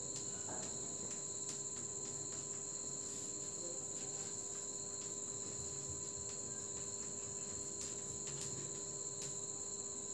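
Crickets trilling in one continuous high-pitched drone. Faint scratches and taps of chalk on a blackboard come through now and then.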